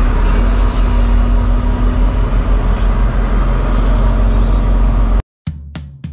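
Semi-truck's diesel engine running at low speed, heard from inside the cab as the tractor-trailer is maneuvered up to a loading dock. It cuts off suddenly about five seconds in and gives way to music with a drum beat.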